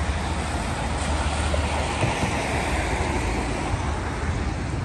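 Steady street traffic: cars passing on a wet road, an even hiss over a continuous low rumble.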